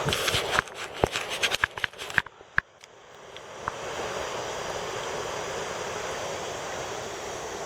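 Stream water rushing steadily, with a quick run of sharp clicks and knocks in the first few seconds and a short, muffled dip before the steady rushing returns.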